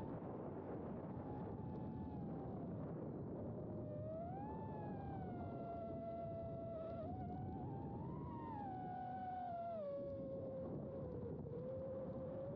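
Emax Babyhawk 2 HD FPV quadcopter's electric motors whining, the pitch gliding with throttle: it rises about four seconds in, climbs again around eight seconds, then falls near the end. A steady rush of wind noise runs underneath.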